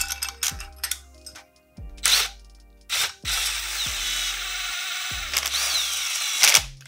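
Cordless power drill/driver spinning, in two short bursts and then for about three seconds steadily, running the cylinder head bolts down. Background music with a steady beat plays underneath.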